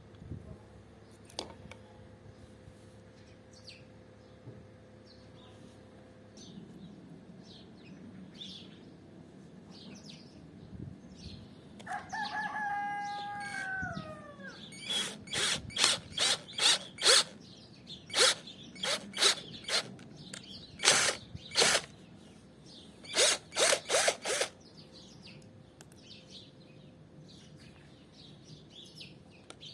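A rooster crows once, then a power drill runs in clusters of short, loud bursts for about ten seconds. Small birds chirp faintly throughout.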